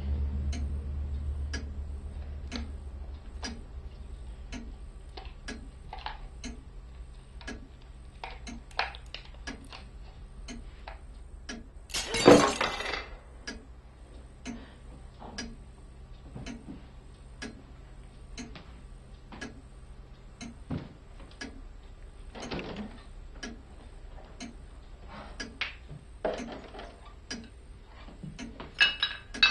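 A clock ticking steadily over a low rumble that fades out. About twelve seconds in, something breakable crashes and shatters into shards. Near the end come light clinks of broken pieces.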